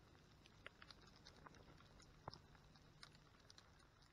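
Near silence with a few faint, scattered ticks and clicks, the most distinct about two seconds in.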